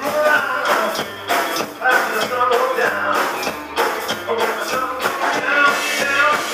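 A live rockabilly band playing: upright double bass, drum kit and electric guitar, with a steady driving beat.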